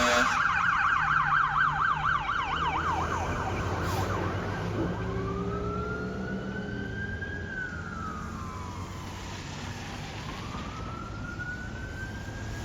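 Fire engine siren on a fast yelp for the first three seconds or so, then switching to a slow wail that rises and falls twice. The truck's engine runs underneath.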